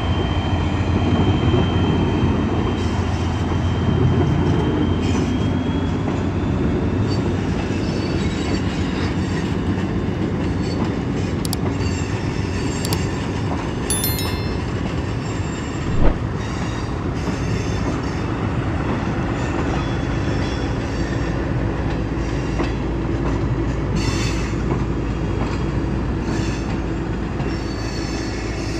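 Train running on the line: a steady rumble with wheels squealing and clicking on the rails, and one sharp thump about halfway through.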